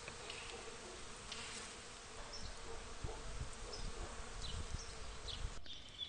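Bees humming faintly and steadily around a tree in early flower.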